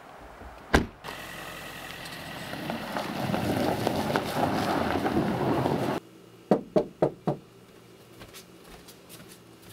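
A single thump, then vehicle engine noise that builds for about five seconds and cuts off. Then four quick knocks on a door.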